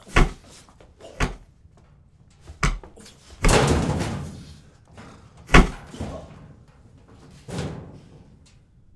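A scuffle: a man is shoved against metal lockers, with about six thumps and slams spread over several seconds. One slam about a third of the way in trails off for about a second, and the sharpest bang comes a little past halfway.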